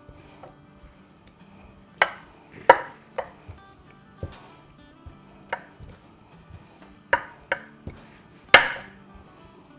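Marble rolling pin rolling out oiled puri dough on a granite countertop, with sharp, irregular knocks as the stone pin strikes the counter; the loudest come a few seconds in and near the end.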